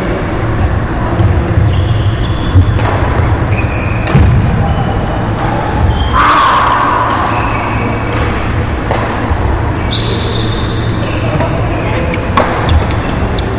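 Badminton rally: rackets striking the shuttlecock in several sharp hits at irregular intervals, with sneakers squeaking briefly on the wooden court floor. The hall echoes, over a steady low hum.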